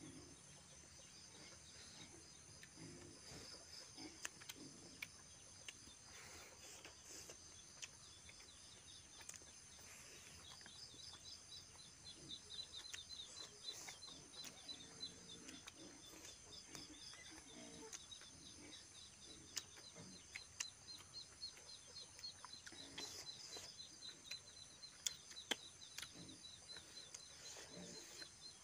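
Faint eating sounds: chewing and wet mouth smacks with scattered small clicks as rice and meat are eaten by hand, over a steady high-pitched chirping in the background.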